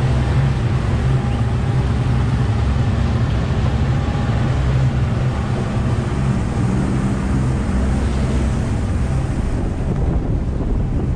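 Outboard motor of a small river-taxi boat running steadily under way, a constant low rumble, with wind buffeting the microphone and water rushing past the hull.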